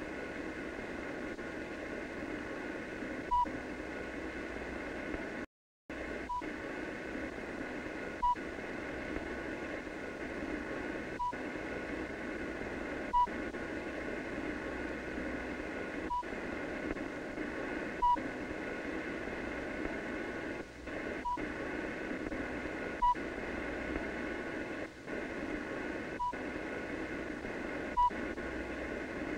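Short electronic beeps, a sound effect for radar pulses, repeating about every two to three seconds, about a dozen in all, over the steady hiss of an old film soundtrack. The sound cuts out completely for a moment about five and a half seconds in.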